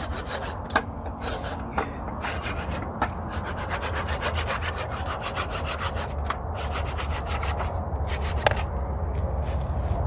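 Hand saw cutting through thick wood in quick back-and-forth strokes, with a few sharp knocks along the way.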